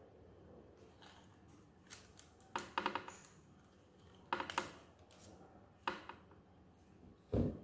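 Metal spoons clinking against each other and against a stainless steel pot while cookie dough is scooped out, in three short runs of sharp clicks. A dull thump near the end is the loudest sound.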